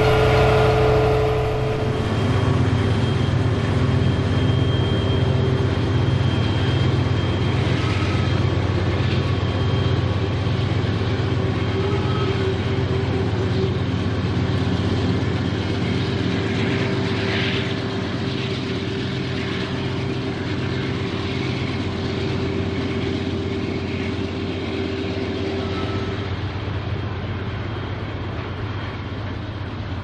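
Freight train rolling along the rails: a steady low rumble of locomotives and cars with faint wheel clatter, gradually growing quieter.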